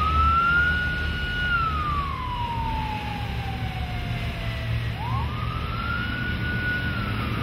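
A siren wailing in two slow cycles: each rises quickly, holds high, then falls slowly, the second starting about five seconds in. A steady low rumble runs underneath.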